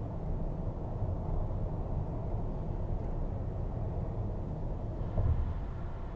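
Steady low rumble of a car driving at highway speed, heard from inside the cabin: tyre and road noise with the engine underneath. A brief louder thump a little past five seconds in.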